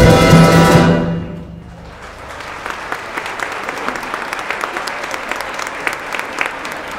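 A full orchestra of strings, winds, brass and percussion holds a loud final chord that breaks off about a second in and dies away, marking the end of the piece. About two seconds in, audience applause starts and keeps going steadily.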